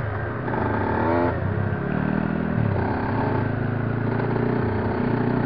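Dirt bike engine running under throttle on a trail, heard from on board. Its pitch rises and falls with the throttle, with a rise and drop about halfway through.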